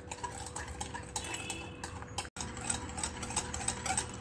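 Wire balloon whisk beating thick cream by hand in a glass bowl, its wires clicking against the glass in a rapid, uneven rhythm.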